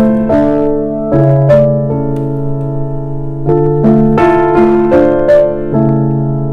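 Background music: piano playing a slow melody over sustained chords.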